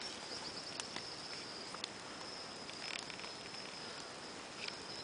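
A cricket trilling steadily at a high pitch, over a campfire's low hiss, with a few sharp crackles from the fire.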